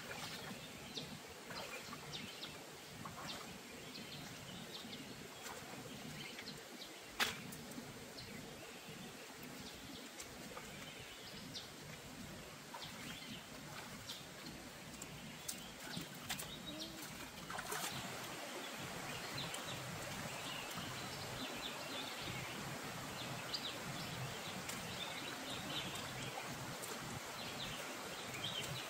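Shallow stream water running and splashing as someone wades and works with their hands in it, with scattered small taps and one sharp knock. The water noise grows louder a little past halfway through.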